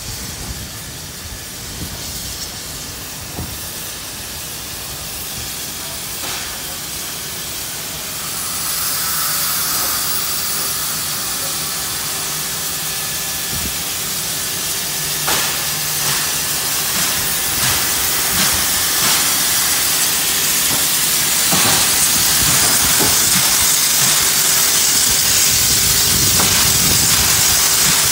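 NSW 59 class steam locomotive 5917 moving slowly, its steam hissing and growing louder from about a third of the way in, with a few sharp knocks along the way.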